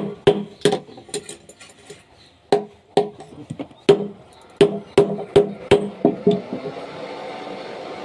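Rapid hammer-like knocks on something hollow, each with a short pitched ring, in uneven bursts of several strikes. About six and a half seconds in, the knocking stops and a steady hum-like noise carries on.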